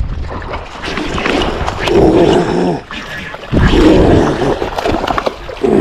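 A snakehead splashing at the surface as it strikes a lure in shallow weedy water. Two loud, rough vocal outbursts come about two and four seconds in.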